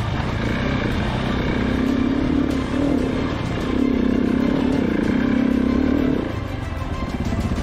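Big single-cylinder KTM dual-sport motorcycle engine under way on a dirt trail, heard from the bike itself, its revs swelling and easing with the throttle. The engine note drops off about six seconds in.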